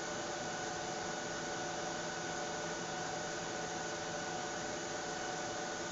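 Steady background hiss with a constant hum of a few steady tones; nothing starts or stops.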